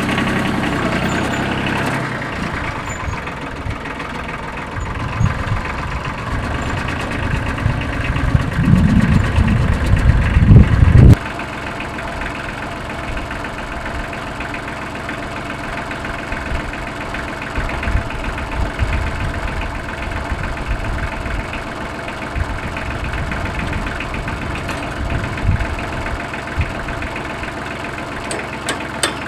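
Tractor engine running steadily. A louder stretch of low rumbling builds from about five seconds in and cuts off abruptly about eleven seconds in, with a few scattered low knocks afterwards.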